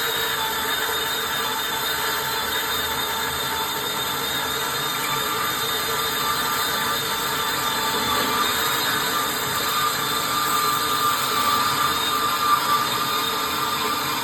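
Hercules variable-speed band saw with an 18-tooth blade, running steadily as it cuts, a constant motor whine over the rasp of the blade.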